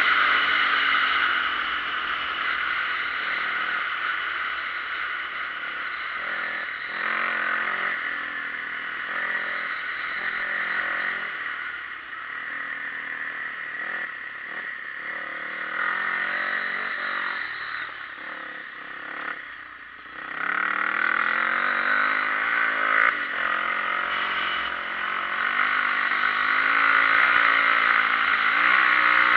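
Dirt bike engine running under throttle, its pitch rising and falling with throttle and gear changes, over steady rushing noise. The engine eases off for a moment about two-thirds of the way through, then pulls back up.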